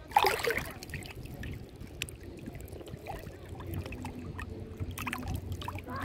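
River water sloshing and lapping around a camera held at the surface, with small clicks and drips throughout. A short loud burst comes right at the start.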